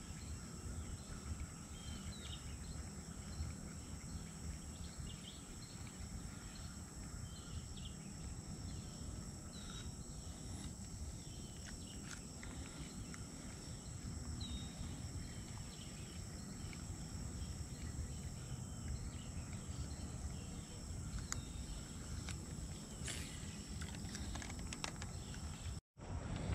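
Insects keep up a steady high-pitched drone over a low rumble, with scattered short bird chirps.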